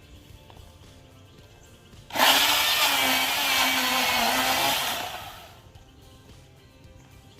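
Milwaukee cordless battery-powered chainsaw starting abruptly about two seconds in and cutting through wood for about three seconds with a steady electric motor tone, then winding down.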